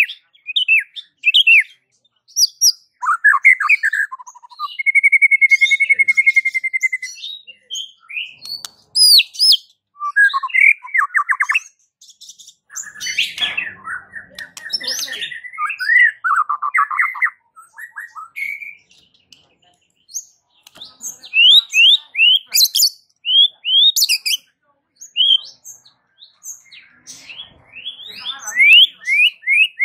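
White-rumped shama singing a loud, varied song of whistles, rapid trills and quick sweeping notes, in bursts broken by short pauses.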